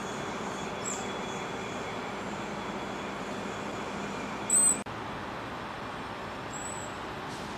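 Steady hum of downtown city traffic, with a short, loud, high-pitched chirp about four and a half seconds in and two fainter chirps, one near the start and one near the end.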